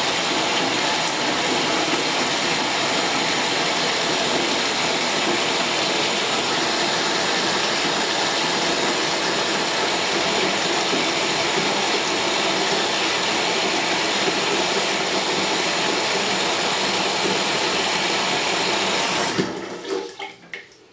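Tub spout water pouring steadily into a 5-gallon bucket during a timed flow test, about 2.5 gallons per minute through the flow-restricted valve. The water is shut off about 19 seconds in, leaving a few faint drips.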